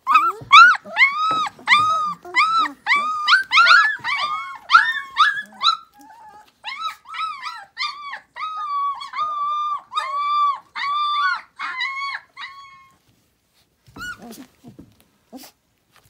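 A three-week-old puppy crying in a rapid series of short, high whines, about two or three a second, that stop about two-thirds of the way through. A few soft knocks and one last short cry follow near the end.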